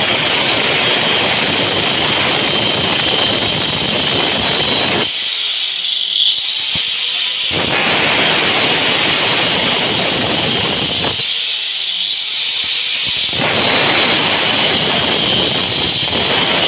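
Electric angle grinder with a cutting disc running and cutting across a WPC (wood-plastic composite) wall panel: a steady high motor whine with a coarse cutting noise. The cutting noise drops out twice for about two seconds, about five and about eleven seconds in, while the whine carries on.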